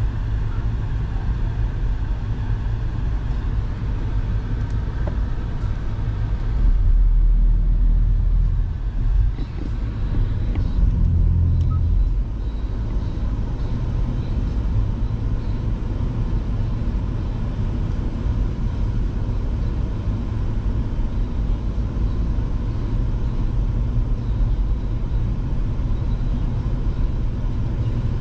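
Steady low rumble of a car's engine and tyres heard from inside the cabin while driving, swelling louder for a few seconds about a quarter of the way in.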